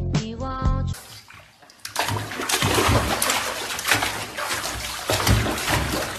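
Water splashing and sloshing in a bathtub as a pug paddles and thrashes about, with dull knocks against the tub. A second of background music cuts off abruptly about a second in.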